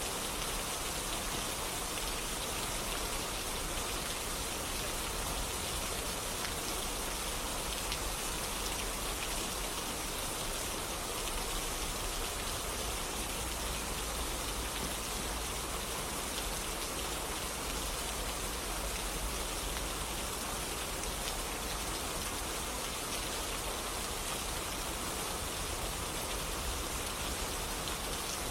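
Steady rain falling on a surface, an even hiss of countless drops with no let-up.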